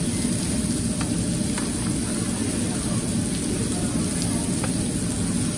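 Salmon, shrimp and onions sizzling on a stainless tabletop grill, a steady hiss over a low rumble, with a few faint clicks of metal tongs against the grill.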